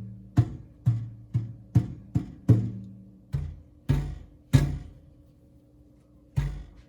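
Hand knocking on the metal panels inside a GE Cafe series microwave, each knock giving a short low hollow ring. The knocks come about twice a second, then pause for nearly two seconds, with one more near the end. It is a tap test for the loose part behind the microwave's vibrating noise.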